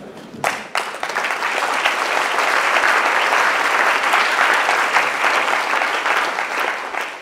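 Audience applauding: many hands clapping, building up over the first couple of seconds, holding steady, then fading away near the end.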